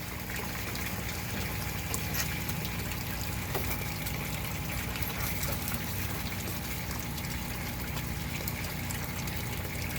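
Steady water running and trickling in an aquaponics sump tank, over a constant low hum.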